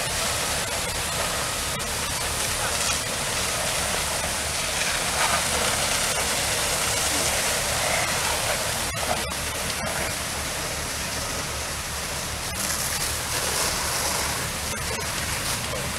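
Steady rushing noise of water from fire hose and ladder streams spraying onto a burning house.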